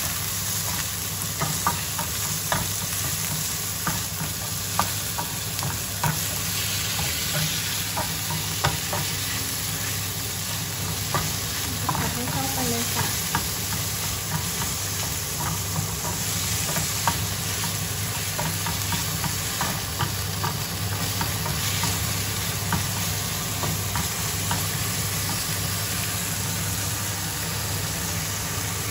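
Sliced meat with pounded chilli and garlic sizzling steadily in a non-stick frying pan, stirred with a wooden spatula that clicks and scrapes against the pan every second or so. A steady low hum runs underneath.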